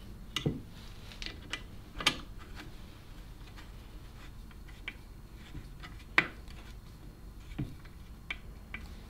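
Scattered sharp metal clicks and light taps as a Stanley Bedrock No. 608 hand plane is put back together, a screwdriver turning the screw in the wooden rear handle; the two loudest clicks come about two and six seconds in.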